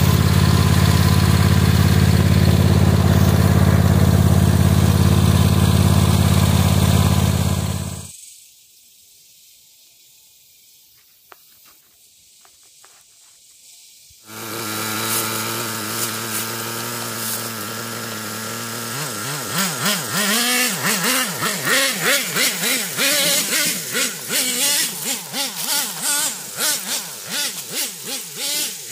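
A loud steady engine drone, which stops suddenly for several seconds. Then the two-stroke nitro engine of a Traxxas T-Maxx 3.3 RC truck runs, and from about two-thirds in it revs up and down over and over as the truck drives.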